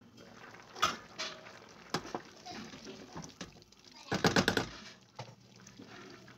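A few sharp metal clinks from a stainless steel pot lid, then a quick run of knocks and scrapes from a wooden spoon stirring rice in water in the pot, about four seconds in.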